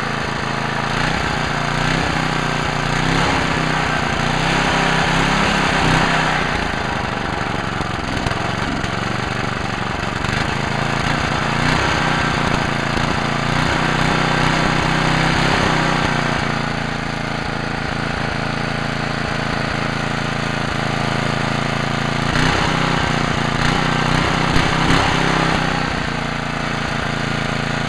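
10 hp Tecumseh snowblower engine, a single-cylinder four-stroke, running steadily. It gets louder three times for a few seconds as the throttle linkage at the carburettor is worked by hand.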